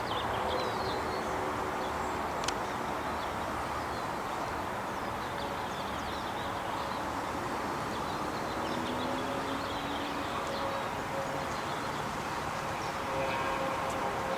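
A steady mechanical drone with a faint steady hum running through it, and faint high chirps over it now and then.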